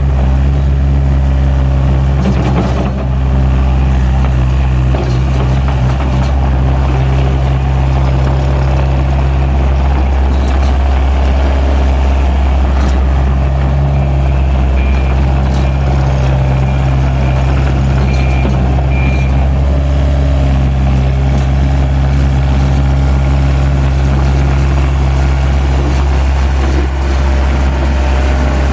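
Takeuchi TL130 track loader's diesel engine running steadily.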